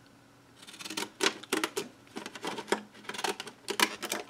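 Scissors cutting through lilac cardstock in a series of short, crisp snips, starting about half a second in and coming irregularly, several to the second.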